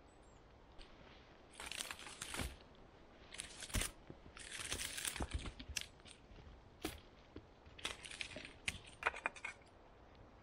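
Irregular bursts of rustling and crunching, then a quick run of sharp knocks and clicks near the end, as sticks and stones are handled at a campfire.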